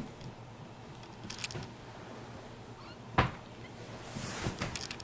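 Faint rustling and handling noises on a bedsheet, with one sharp click about three seconds in.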